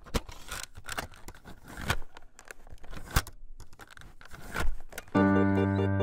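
Irregular crackling, clicking and short hissy bursts: a static or glitch sound effect. About five seconds in, keyboard music takes over with loud sustained low notes.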